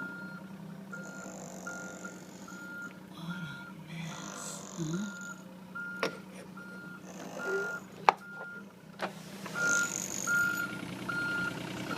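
Reversing alarm beeping steadily, one short tone about every 0.7 seconds, over a low engine hum, with a few sharp clacks about halfway through.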